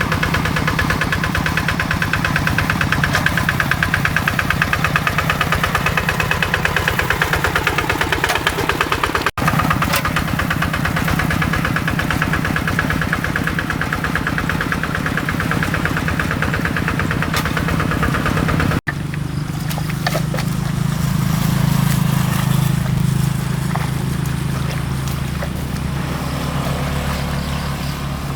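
Kubota RD85 single-cylinder diesel engine of a hand tractor running steadily with a fast, even chug. The sound drops out briefly twice, and after the second break, about two-thirds of the way in, it is deeper with less rattle.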